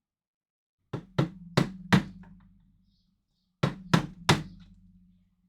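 Seven sharp hammer blows knocking material off a workpiece: four quick strikes, a pause of over a second, then three more, each leaving a low ringing hum that hangs on.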